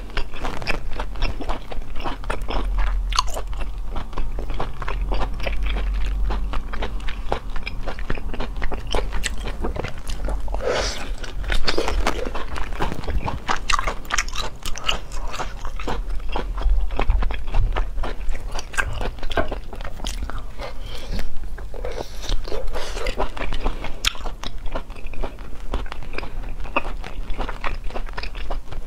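Close-miked eating of raw Arctic surf clam: wet biting and chewing with many sharp mouth clicks, over a steady low hum.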